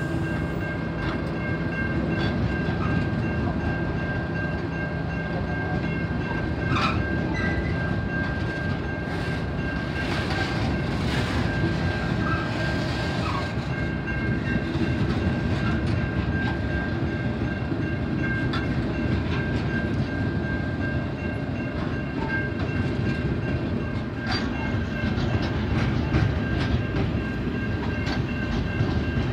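Freight train's hopper wagons rolling past close by: a steady rumble of wheels on rail, with clicks over the rail joints and a steady high-pitched tone running through it.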